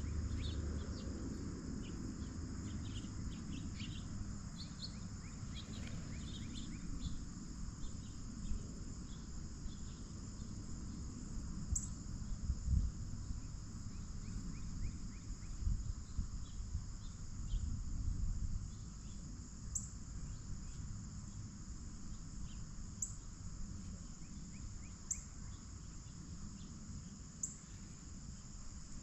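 Steady outdoor insect chorus in a high, continuous drone, with scattered short bird chirps and a few soft low thumps.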